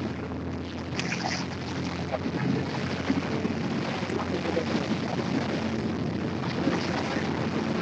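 A small boat under way: its motor running steadily, with water splashing along the hull and wind buffeting the microphone.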